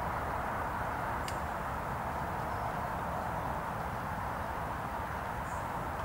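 Steady outdoor background noise with a low rumble, unchanging throughout, with one faint sharp click about a second in.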